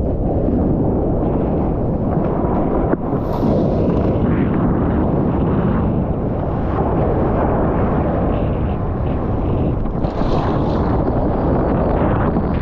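Strong wind buffeting the microphone in a steady low rumble, with ocean surf beneath it.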